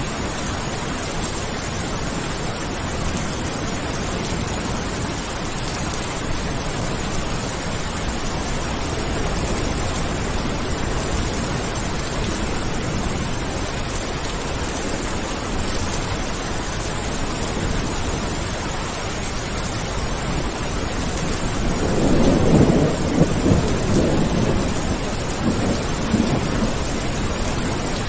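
Steady heavy rain with a rolling thunder rumble that swells about 22 seconds in and fades over the next few seconds.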